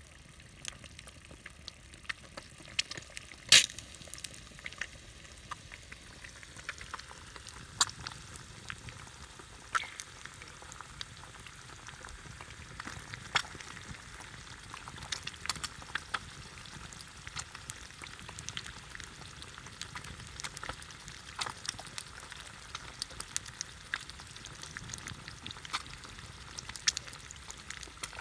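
Food frying in a pan: a steady sizzle with scattered sharp pops and crackles, one louder pop a few seconds in.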